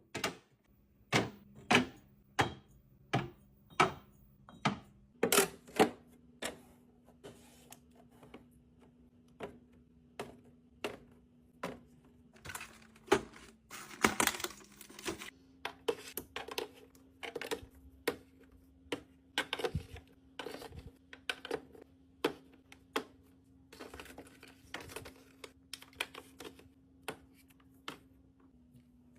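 A long series of sharp clicks and knocks, about one or two a second and some much louder than others, from packaged snacks and drinks being set down and arranged in a mini fridge during a restock. A faint low hum runs underneath.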